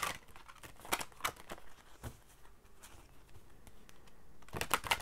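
Angelarium oracle deck being handled and shuffled by hand: scattered soft card clicks and slaps, with a quick flurry of them near the end.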